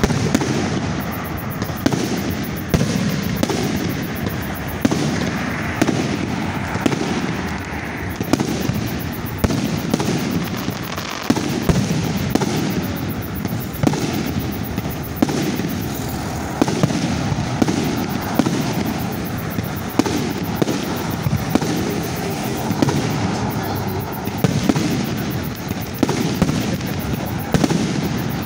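Aerial firework shells launching and bursting in quick succession: a continuous din of booms with sharp reports every second or so.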